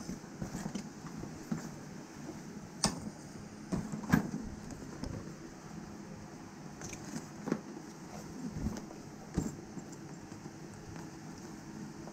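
A fabric motorcycle saddle bag being handled: nylon rustling and scraping, zips being pulled and buckles and zip pulls clicking in short scattered bursts, over a steady low hum.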